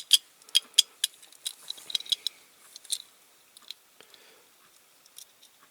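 Light clicks and taps of a small diecast metal toy truck and its parts being handled and fitted together, a quick run of them over the first three seconds, then only a few.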